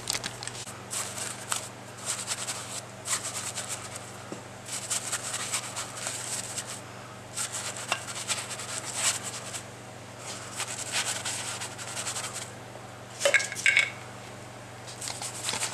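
Paintbrush scrubbing soapy water over the valve ports and chambers of a cast-iron Ford Model A engine block, a run of short swishing strokes, to leak-test it for bubbles. Two louder knocks come near the end.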